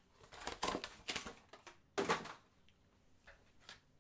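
Trading card packs being handled and opened: short bursts of crinkling wrapper and rustling cards, three of them in the first half, then quieter handling.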